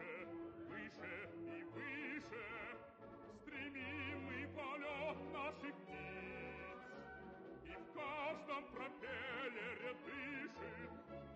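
Operatic singing with a wide vibrato, over low held accompanying notes.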